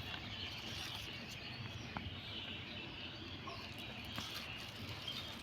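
Faint outdoor background of distant birds chirping over a steady hiss, with a couple of light ticks.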